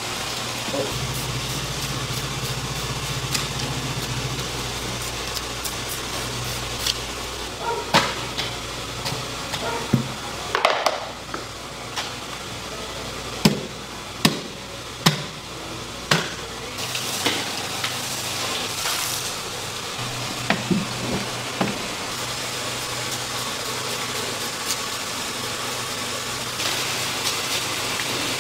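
Butchering a large tuna on a wet floor: water running from a hose with a steady low hum, broken in the middle by a string of sharp knocks of blades and tools against the fish and board, and a rasping scrape near the end as scales are scraped off the skin.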